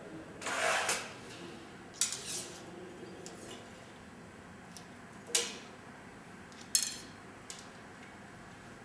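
Clicks and a short rattle of an arrow being handled and loaded onto a recurve bow: a brief clatter about a second in, then single sharp clicks around two, five and a half and seven seconds in.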